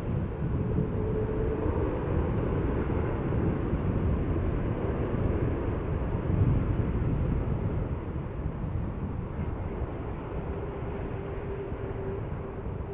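Jet engines of a four-engined Airbus A380 airliner: a steady deep rumble that eases off gradually over the last few seconds, with a faint steady hum coming in near the end.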